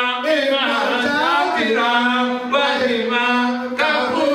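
A man singing an unaccompanied chant, holding long notes with no break.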